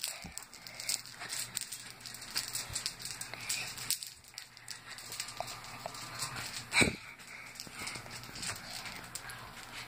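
Light, irregular taps and clicks of a child's feet stepping and stomping on the floor while she dances without music, with one sharp louder knock about seven seconds in.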